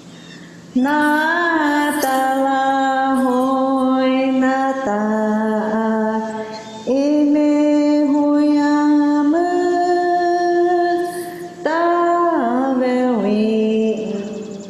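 A voice singing a Hopi song in long held notes, starting about a second in. Each note is held for about two seconds before stepping to a new pitch, and a few begin with a short upward slide.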